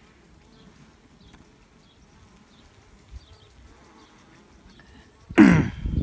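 A person coughs once, short and harsh, near the end, after several seconds of faint background with light honeybee buzzing from the open hive.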